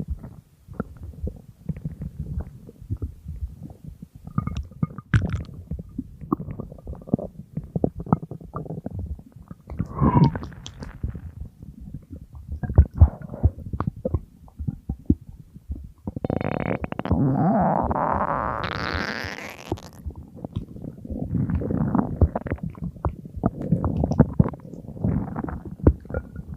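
Human stomach growling: a run of irregular low gurgles and pops, with a long gurgle about two-thirds of the way through that rises steadily in pitch into a squeal.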